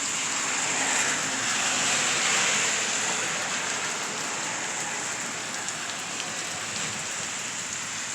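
Steady rain falling and splashing on surfaces, a constant hiss that swells slightly a second or two in.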